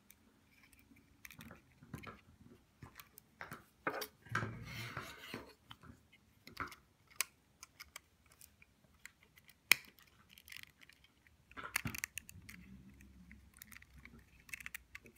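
LEGO bricks being handled and pressed together into a model, making irregular sharp plastic clicks and rattles, with the loudest clicks about two thirds of the way in.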